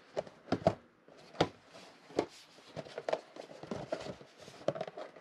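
Cardboard trading-card blaster boxes handled and set on a table: a string of light, irregular knocks and taps of cardboard.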